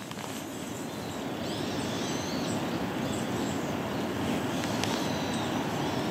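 Steady outdoor background rumble with a few faint, short bird calls over it.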